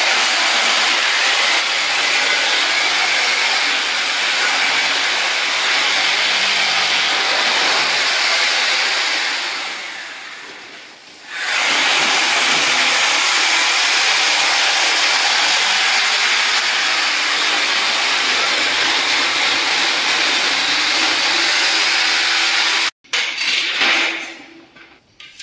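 A power tool running with a loud, steady rushing noise. It fades away about ten seconds in, starts again a second or so later, and cuts off abruptly near the end, followed by a few short knocks.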